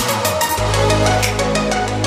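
Electronic dance music: held synth notes over steady hi-hat ticks, with a deep bass note coming in about half a second in.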